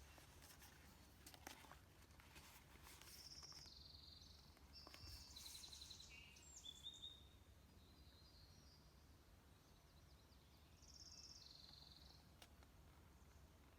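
Faint songbird song outdoors: several short trilled and stepping phrases, a few times through, over a steady low hum, with a few soft clicks in the first two seconds.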